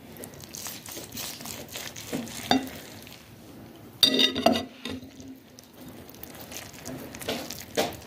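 Knife and fingers cutting and prying open a boiled stuffed tripe on a ceramic plate: soft wet tearing, crackling and scraping, with a louder knock and scrape about four seconds in.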